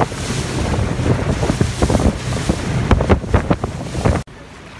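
Motorboat running fast over a choppy sea: wind buffeting the microphone, with the hull slapping the waves and spray splashing. The sound drops off abruptly to a much quieter background near the end.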